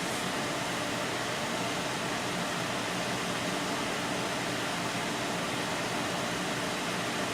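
Custom-built desktop PC's cooling fans running with a steady, even rushing hiss. The owner puts the noise down to a PWM rear exhaust fan that is not yet set up properly.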